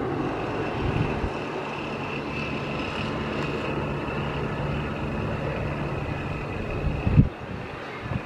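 Airbus A330 airliner's jet engines on final approach, a steady rushing noise with a constant high whine, mixed with wind buffeting the microphone. About seven seconds in, a sharp thump is the loudest thing, and the sound is quieter after it.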